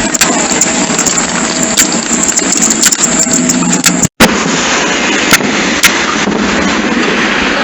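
Fireworks bursting and crackling with many sharp cracks over a constant rush of noise, recorded on a flip phone's microphone. The sound drops out completely for an instant about four seconds in.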